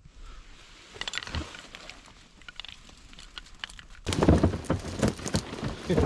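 Scattered faint clicks and ticks, then from about four seconds in loud, dense rustling and knocking, like people or gear moving about in close cover.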